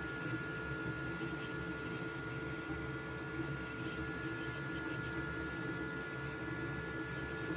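FLSUN QQ-S delta 3D printer running a print: a steady mechanical whirr from its motors and fans, with a constant high whine over a fluttering low hum.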